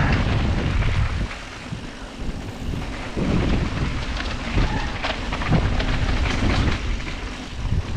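Wind buffeting the action camera's microphone as a mountain bike rides downhill, a heavy low rumble with many short clicks and knocks from the bike rattling over the trail.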